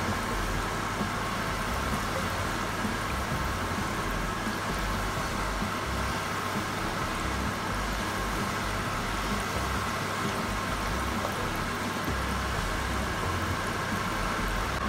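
Hot oil sizzling and bubbling steadily in a frying pan as small pieces of food fry in it.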